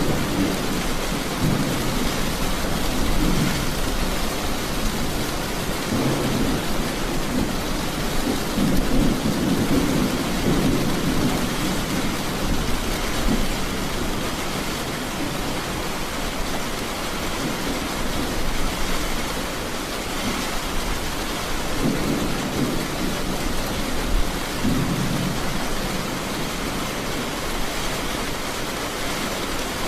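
Steady heavy rain with thunder rumbling low several times, the longest rumble starting about six seconds in and others near the end.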